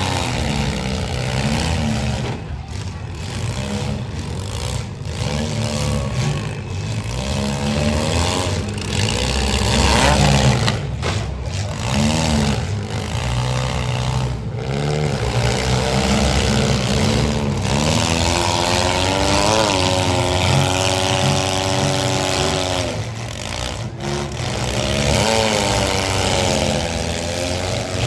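Compact demolition derby cars' engines revving hard, the pitch repeatedly climbing and dropping as they accelerate and push against each other in the dirt.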